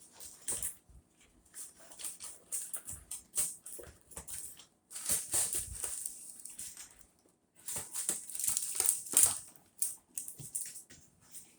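Packaging rustling and crinkling in irregular bursts as a boxed replica championship belt is unwrapped by hand.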